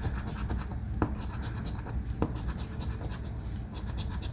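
A coin scratching the coating off a scratch-off lottery ticket in quick, repeated short strokes, with a couple of sharper taps.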